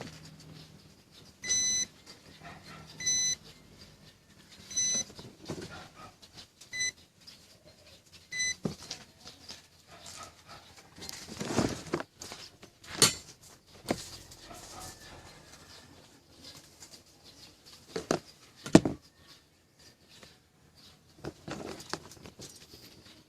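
Five short electronic beeps, about one every one and a half to two seconds, then a scatter of knocks and clatter from handling, the sharpest about 13 seconds in and again around 18 to 19 seconds in.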